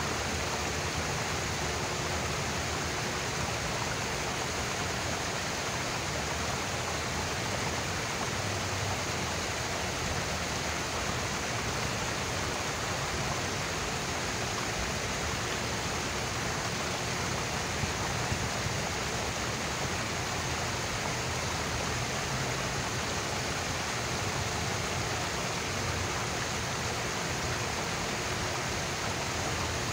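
Fountain water running steadily: a stepped cascade and jets from wall spouts splashing into a shallow pool, an even rushing splash.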